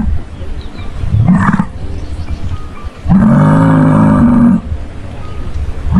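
Cow mooing: a short rising call about a second in, then one long, low, level moo about three seconds in.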